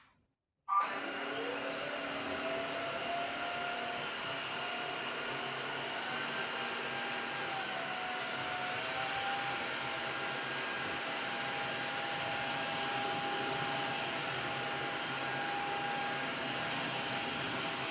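Tineco S3 wet-dry floor vacuum switched on about a second in, its motor spinning up with a rising whine, then running steadily.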